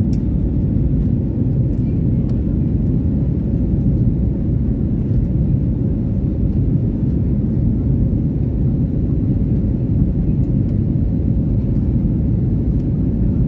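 Jet airliner cabin noise during the climb after takeoff: the steady low rumble of the engines and rushing air, heard from inside the cabin.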